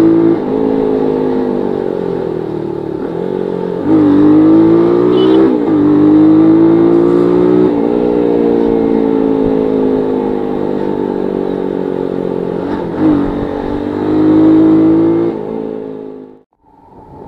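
Bajaj Pulsar 180's single-cylinder engine through a modified exhaust, pulling through the gears while riding: the pitch climbs, drops at each shift, then holds steadier and eases off, fading out near the end.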